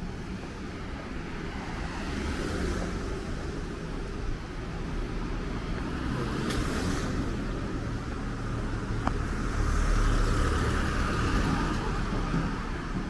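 Street traffic: cars passing one after another over a steady low road rumble, the sound swelling and fading with each vehicle, the loudest about ten seconds in. A sharp click is heard about halfway through.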